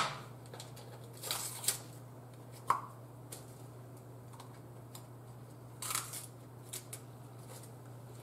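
A few light clicks and scrapes, spaced out over several seconds, as a jar of beef bouillon powder is opened and handled, over a steady low hum.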